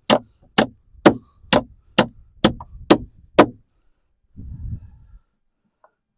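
Hammer driving a ridged (ring-shank) 16-penny nail into a wooden floor brace: eight even strikes, about two a second. A brief low rumble follows about a second later.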